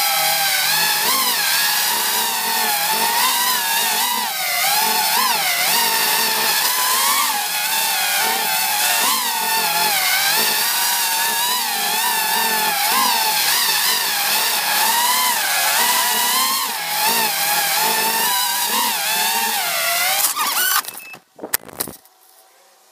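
Racing-quadcopter brushless motors and propellers (DJI Snail) whining, the pitch rising and falling with each throttle change. The motors cut out about 21 seconds in, followed by a few brief knocks.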